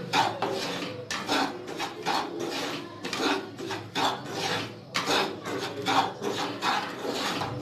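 Wooden spatula stirring and scraping dry semolina around a nonstick pan, with rasping strokes at roughly two a second, as the rava dry-roasts on medium heat.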